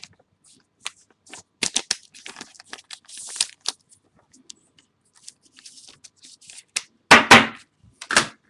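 Trading cards and plastic card sleeves being handled: scattered clicks and crinkly rustling, with two louder bursts of rustling near the end.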